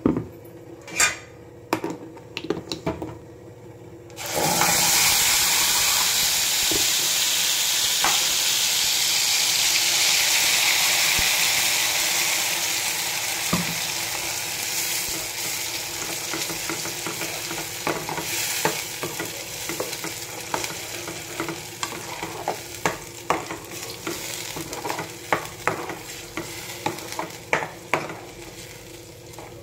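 A wet paste tipped into hot oil in a steel kadai: a sudden loud sizzle about four seconds in that slowly dies down. A steel ladle clicks against the pan while stirring, more often toward the end.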